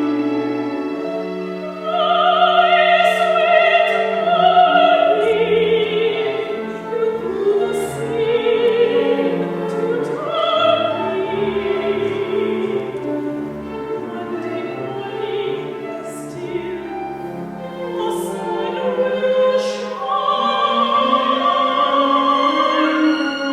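Operatic singing: a voice with strong vibrato, its notes rising and falling through a sung phrase over an instrumental accompaniment.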